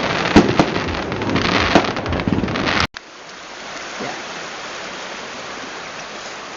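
Fireworks going off, with irregular sharp bangs and crackling. They cut off abruptly about three seconds in and give way to a steady rushing noise.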